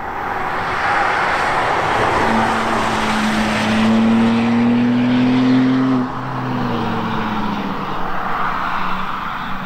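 Camouflaged BMW M2 prototype on a race track, its engine pulling hard with a rising pitch over several seconds. The pitch drops sharply about six seconds in and then runs on lower, over a steady rush of tyre and wind noise.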